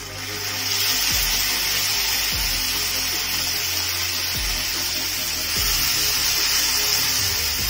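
Chopped onions sizzling in hot oil with cumin seeds in a frying pan: a loud hiss that starts as they go in, builds over the first second and then holds steady.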